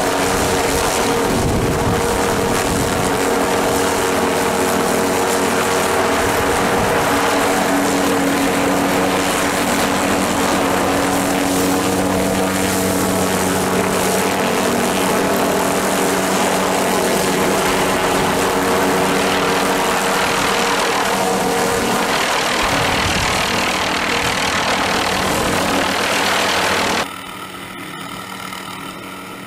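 Helicopter hovering overhead during a longline lift: a loud, steady rotor and turbine sound with a constant hum. Near the end it drops suddenly to a quieter steady level.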